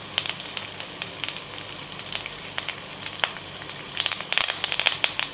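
Hot oil sizzling in a kadhai with cumin seeds, ginger and garlic, with scattered crackles. About four seconds in the crackling gets much denser as torn curry leaves hit the hot oil and splutter.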